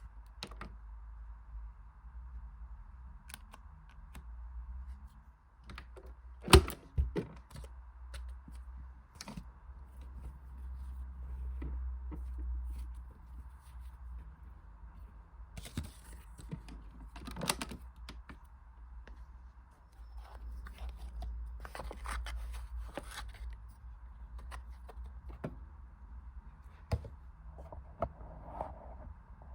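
Theo Klein toy washing machine being handled and operated: irregular plastic clicks and knocks, one loud knock about six seconds in, over a steady faint hum and low rumble.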